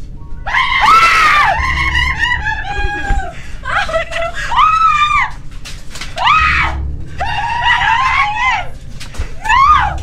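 A young girl screaming in fright: about seven high-pitched shrieks, some drawn out and some short, over a steady low hum.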